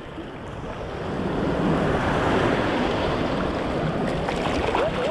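Sea surf washing onto a sandy beach, a steady rush that builds over the first couple of seconds.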